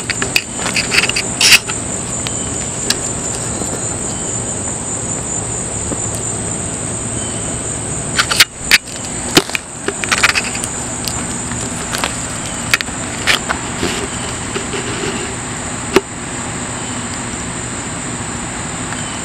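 Steady high-pitched insect chorus, with scattered sharp clicks and pops over it, several close together about eight to ten seconds in.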